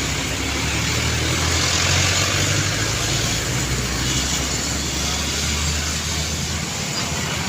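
Road traffic: a heavy vehicle's engine hum under steady tyre and road noise, swelling about two seconds in and then holding level.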